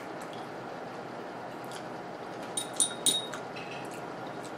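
Faint wet chewing, then a metal fork clinking against a plate a few times about three seconds in.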